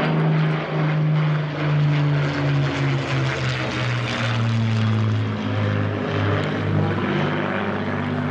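Rolls-Royce Merlin V12 piston engine of a Second World War propeller fighter flying past, a loud steady drone whose pitch drops around the middle as it passes.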